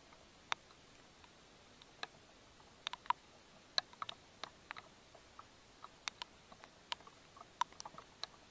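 Irregular light ticks and taps, one to three a second, over a faint steady hiss.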